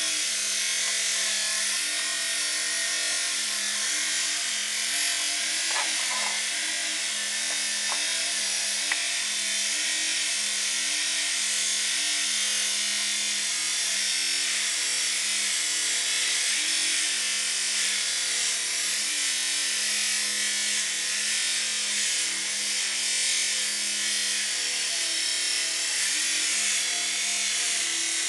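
Argon (TIG) welding arc on an aluminium radiator: a steady buzzing hiss that runs without a break.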